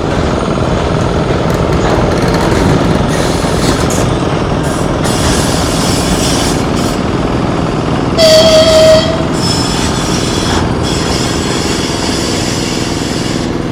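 TEM18DM shunting diesel locomotive running, its diesel engine rumbling steadily, with one horn blast of about a second a little past halfway.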